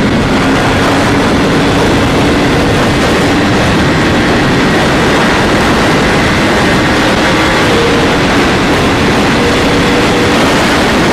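Yamaha R1M crossplane inline-four with a custom aftermarket exhaust running at a steady high cruising speed, nearly buried under loud, constant wind rush on the microphone. Its engine note holds almost level, with slight pitch shifts.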